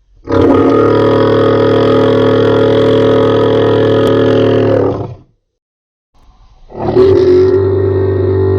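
Home-made dinosaur roar sound effect: a long, steady, low roar of about five seconds that cuts off, then after a brief silence a second roar starts and is still going at the end.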